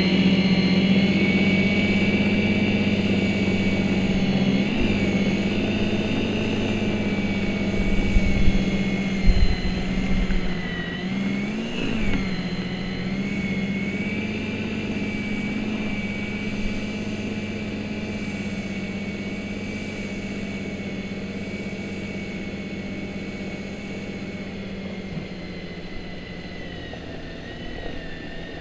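Snow Joe corded electric snow thrower running steadily with a motor whine as it throws snow. Its pitch wavers briefly about eleven to twelve seconds in, and it grows fainter as it moves away. A few low thumps come around eight to ten seconds in.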